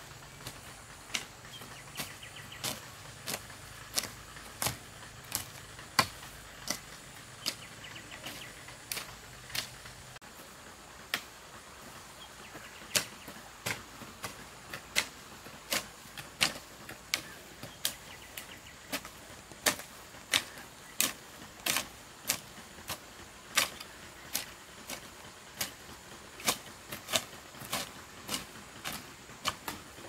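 Hand hoe chopping into weedy soil, a steady run of short, sharp strikes a little over one a second.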